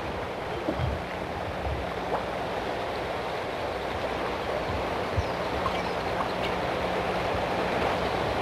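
Deschutes River water rushing past, a steady noisy wash that grows slightly louder toward the end.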